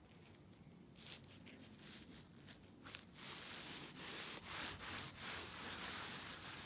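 A weed being pulled up by hand, its roots tearing out of the soil with a run of pops and crackles. The crackles start sparse about a second in and turn dense and louder from about three seconds on.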